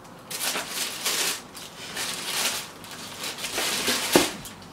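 Tissue paper rustling and crinkling in several bursts as a knit sneaker is pulled out of its box, with a sharp tap about four seconds in.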